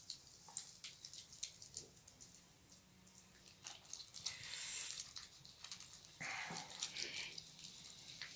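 Faint wet rubbing and squishing of hands being scrubbed with a cut lemon and cornstarch paste, with scattered small clicks.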